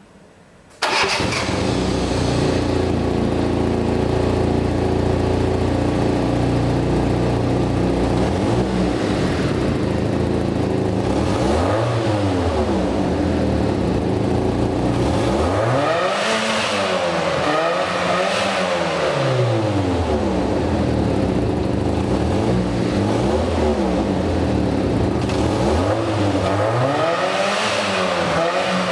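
Fiat Punto 1.2 8V FIRE four-cylinder petrol engine. It cuts in abruptly about a second in and idles steadily, then is revved several times in the second half, the revs rising and falling back to idle with each blip.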